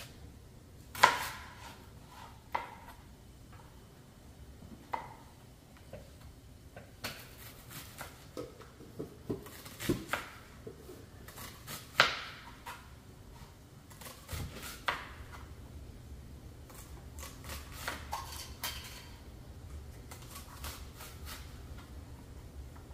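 Irregular kitchen clatter: kitchen utensils and dishes knocking and clinking on a counter as a cooking station is set up, the sharpest knocks about a second in and twice near the middle. A low steady hum comes in about halfway.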